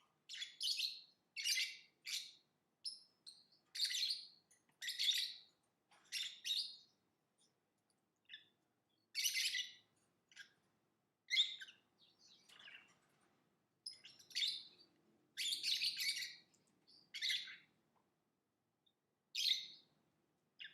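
Lovebird chirping: quick runs of high-pitched chirps and chatter, each lasting about a second, with short pauses between them.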